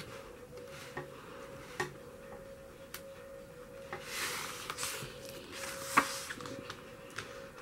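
Paper rustling as the pages of an album's photo booklet are handled and turned, with light taps and one sharp tap about six seconds in.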